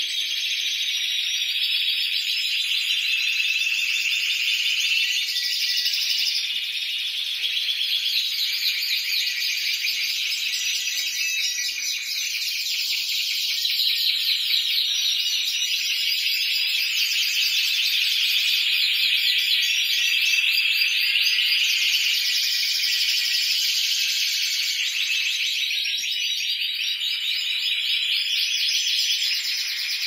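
Several Spanish Timbrado canaries singing at once in their cages: a continuous chorus of rapid, high trills and rolls that shift from one phrase to the next.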